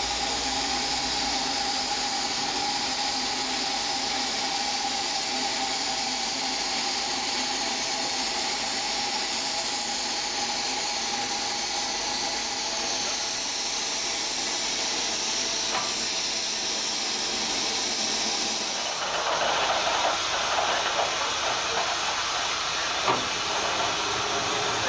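Steam hissing steadily from a stationary LMS Royal Scot class 4-6-0 locomotive, with a faint steady tone in the hiss. About three-quarters of the way through the hiss turns rougher and a little louder, with one sharp knock shortly before the end.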